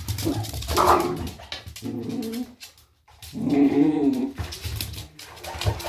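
A dog's short yaps and whimpers, a string of half-second calls with a brief pause in the middle, and light clicks between them.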